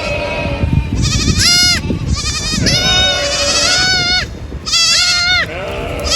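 Several goats bleating, about four or five quavering calls, some overlapping, the longest held for over a second in the middle.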